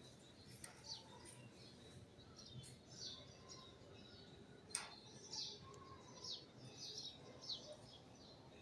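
Faint, repeated short high chirps of small birds, each one sliding downward in pitch, coming more thickly after the middle. A single sharp click about five seconds in.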